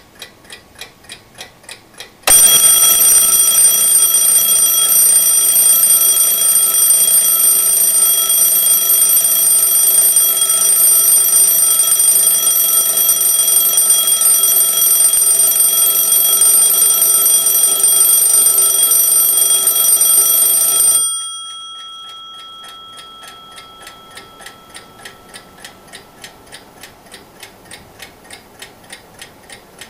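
Antique German Junghans mechanical alarm clock from the 1920s–30s: rapid ticking, then its dome bell goes off in a loud, continuous ring for about nineteen seconds. The ringing stops suddenly, the bell hums on and fades, and the ticking carries on.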